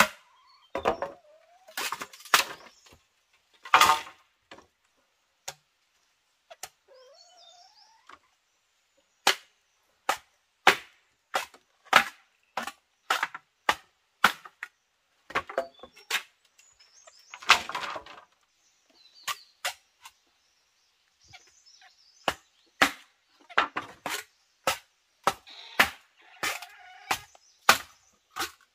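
Repeated sharp strikes on wood, about one to two a second, in runs with a pause of a few seconds near the middle.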